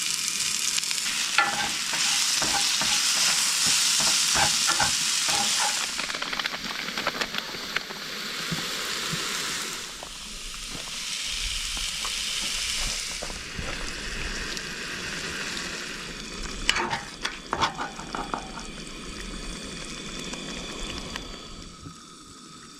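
Food sizzling in a pan on a camp stove, with a utensil stirring and clicking against the pan now and then. The sizzle is loudest early on, swells again midway and fades toward the end.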